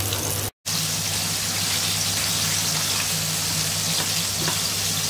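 Flour-coated chicken piece frying in hot oil: a steady sizzle, broken by a brief dropout about half a second in.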